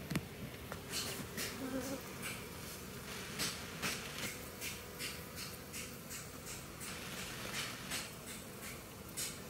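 Honeybees buzzing around an opened hive, with short scratchy noises coming two or three times a second.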